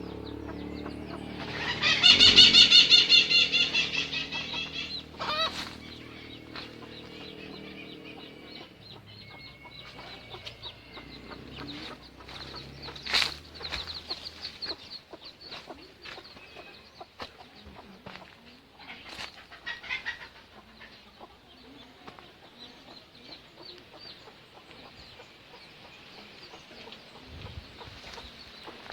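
Chickens: a loud, drawn-out call about two seconds in, then clucking and the thin, repeated peeping of newly hatched chicks.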